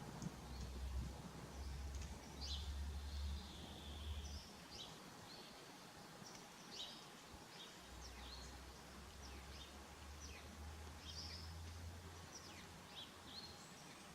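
Small birds chirping, a scatter of short high chirps with a few brief held whistles, faint. A low rumble sits under them for the first four seconds or so and again from about eight to twelve seconds.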